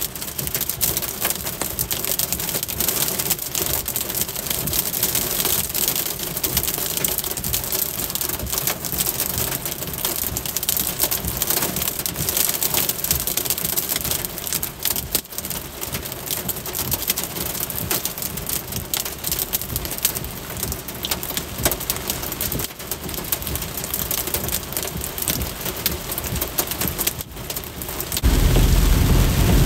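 Heavy rain mixed with small hail hitting a vehicle's roof and windshield, heard from inside the cab as a dense, steady stream of small hits. About a second before the end it switches abruptly to a louder, deeper rushing.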